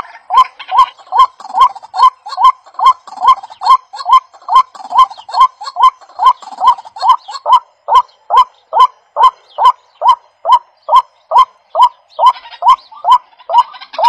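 White-breasted waterhen calling: a loud, short, falling honk-like note repeated very evenly, about two and a half times a second.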